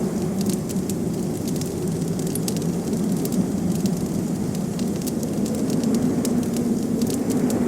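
Wood fire crackling with scattered sharp pops over a steady low wind rumble.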